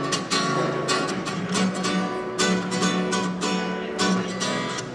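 Acoustic guitar strumming chords in a steady rhythmic pattern, each strum sharp at the attack with the chord ringing on between strokes.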